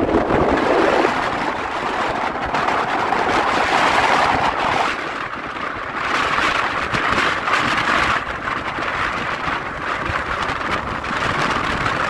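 Strong gusty wind buffeting the microphone: a loud, rough rushing that swells and eases from gust to gust.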